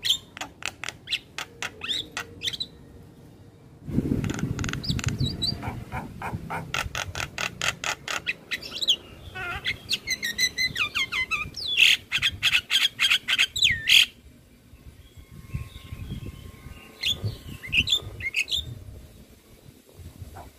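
Javan myna singing a varied, rapid song: fast runs of short clicking, chattering notes, then whistles and sliding calls. The song thins to a few scattered calls over the last several seconds, with a low rumble underneath for a few seconds early on.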